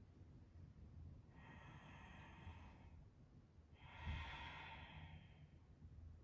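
A person's slow, audible breath in, then a longer, louder breath out about a second later, over quiet room tone.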